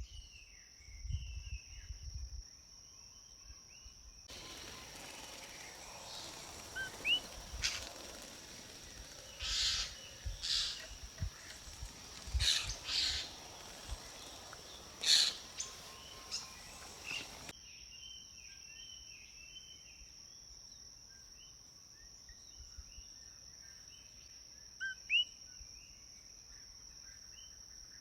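Outdoor nature ambience: a steady high insect drone with small birds chirping here and there. From about 4 to 17 seconds there is a louder, hissier stretch with several loud, sharp calls.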